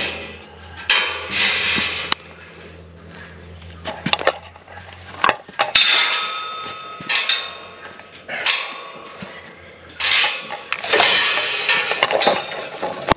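Steel-framed wire goat gate clanking and rattling against its hinge bolts as it is shifted and swung into place, in several bursts of metallic clatter with a little ringing.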